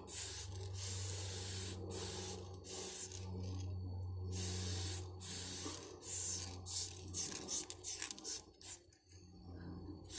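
Aerosol spray-paint can spraying in repeated hissing bursts of a second or two, then a run of short quick puffs about three-quarters of the way through.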